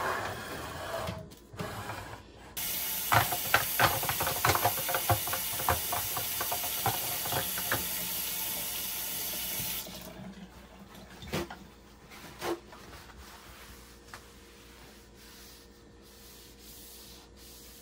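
Kitchen water tap running for about seven seconds, starting and stopping abruptly, with dishes or utensils clattering under it. A couple of single knocks follow.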